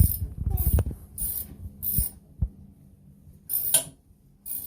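Hands working at the nut and bolt of an old toilet seat: irregular knocks, clicks and scrapes, with a cluster of clunks in the first second and two sharp clicks a couple of seconds in.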